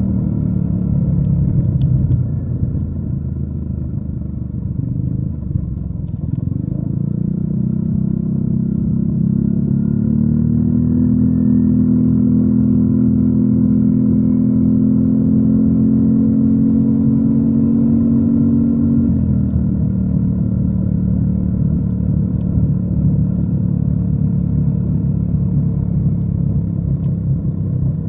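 Yamaha NMAX 155 scooter's single-cylinder four-stroke engine running through a DS4 Daeng Sai4 aftermarket muffler while being ridden. The engine note sits low at first, rises about six seconds in to a steady higher pitch, then drops abruptly about two-thirds of the way through to a lower steady note.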